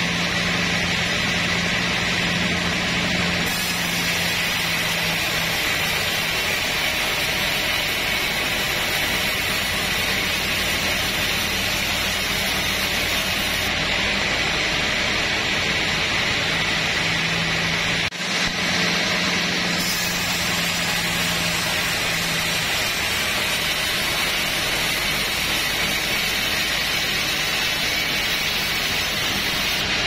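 Sawmill band saw running steadily and cutting through a teak log: a constant motor hum under a loud hiss of the blade in the wood, with a momentary drop just past halfway.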